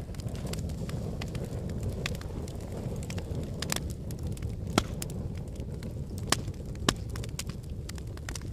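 Wood fire in a fireplace crackling, with a steady low rumble of the flames and frequent irregular snaps and pops, a few sharper pops standing out near the middle and later on.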